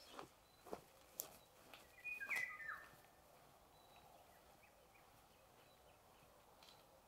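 Woodland birdsong, faint: one short phrase of stepped whistled notes about two seconds in, with a thin high call now and then. A few soft clicks or snaps come in the first second or so.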